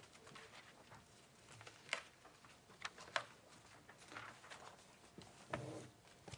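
Scattered soft rustles and light knocks of paper pages being turned and handled while people leaf through printed rule books.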